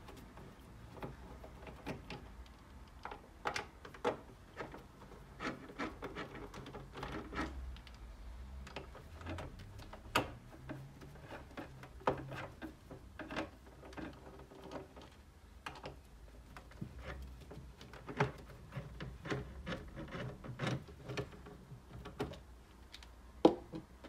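Irregular light clicks, taps and scrapes of a hand screwdriver working out the stand-bracket screws on the back of a Dell OptiPlex 3011 all-in-one PC, with one sharper knock near the end.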